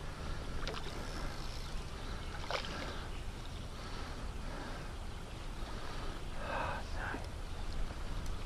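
A hooked trout splashing at the water's surface as it is played in: a few short splashes, two of them close together near the end, over a steady low rumble.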